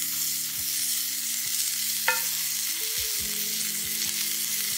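Burger patties frying in a cast-iron skillet over a campfire, with a steady sizzle. A short ringing tick comes about two seconds in.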